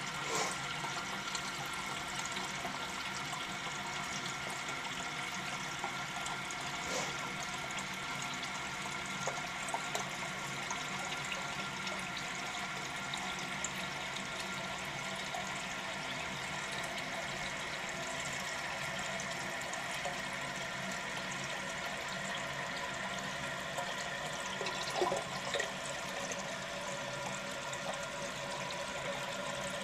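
Toilet tank refilling through a newly installed float-type fill valve on its first fill after installation: a steady hiss of water flowing in, with no letup.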